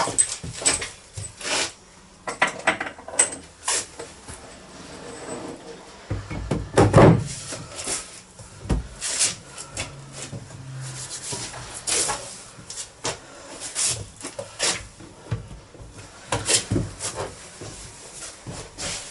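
Knocks, clicks and scraping as a wash basin and its plumbing parts are handled and worked into position, with a louder thump about seven seconds in.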